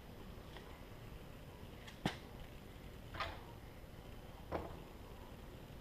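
Three short knocks and clunks about a second apart as parts of a drum sander are handled and fitted during assembly; the first knock is the sharpest.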